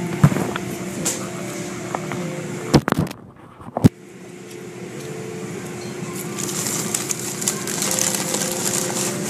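Automatic car wash heard from inside the car: water spray and soapy cloth strips swishing and slapping over the car, over a steady machinery hum. A few sharp knocks come around a short drop in level about three seconds in, and the spraying and slapping grow louder over the last few seconds.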